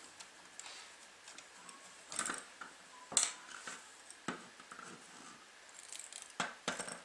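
Hands handling a small plastic LED night-light module and its wires: scattered light clicks, taps and scrapes, the sharpest about three seconds in and two more close together near the end.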